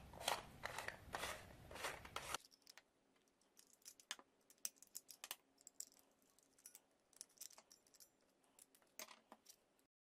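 Plastic flashlight being taken apart by hand: the head ring is twisted off its threads with a scratchy rasping for about the first two seconds, then faint clicks and scrapes as a small screwdriver works screws out of the plastic battery compartment.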